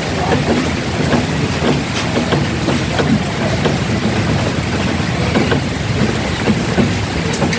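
Rain and wind buffeting the microphone: a steady rushing noise with an uneven low rumble and scattered small ticks of drops.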